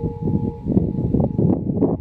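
Federal Signal EOWS 1212 electronic warning siren sounding the attack signal, heard as steady tones. The lower tone drops out about a quarter of the way in. They sit under a loud, irregular low rumble with several short surges.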